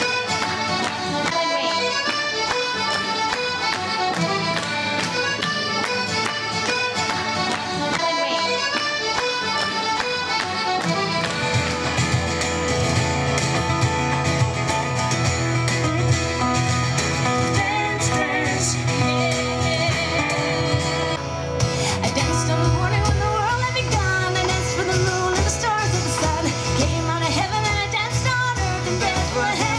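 Folk music: an instrumental tune, joined by bass and a fuller band about a third of the way in, then after a sudden change about two-thirds through, singing with acoustic guitar.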